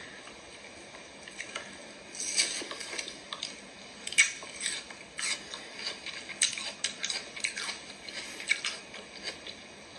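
Someone eating close to a microphone: irregular wet chewing and mouth clicks, the loudest about four seconds in.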